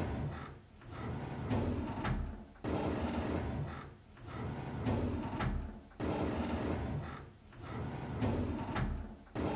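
A drawer sliding open with a noisy sliding sound that starts suddenly, repeated about every three and a third seconds.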